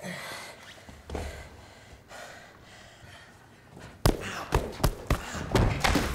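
A person breathing hard with short gasps, then about four seconds in a rapid run of loud thumps and slams.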